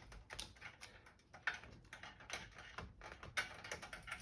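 Irregular light clicks and scrapes of a hand tool working on the small hexagonal standoff nuts that hold a computer monitor's circuit board, several a second.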